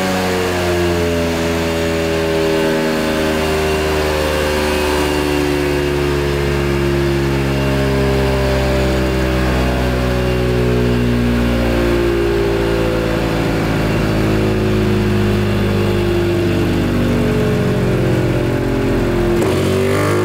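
Quattrini-tuned Vespa PX single-cylinder two-stroke engine running on a roller dyno, its pitch sinking slowly as the revs fall back toward 2,800 rpm, the starting speed for a power run. Just before the end the throttle opens and the revs climb sharply.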